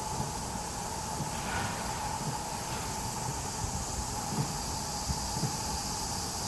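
Steady railway-station background noise: a constant high hiss over a faint steady hum, with scattered soft low thumps.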